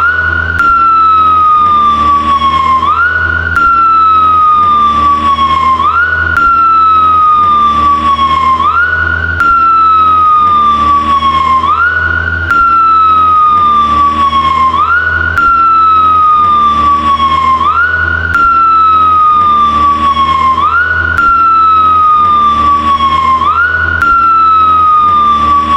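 Police motorcycle siren wailing: a quick rise in pitch, then a slow fall. The same few seconds repeat over and over about every three seconds, with an abrupt cut at each splice, over a low rumble.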